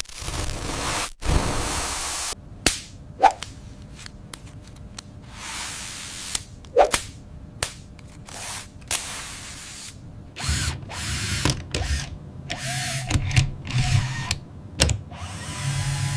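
Power tool running in short, abruptly cut stretches, with sharp clicks and knocks between them; from about ten seconds in, a low motor buzz comes and goes.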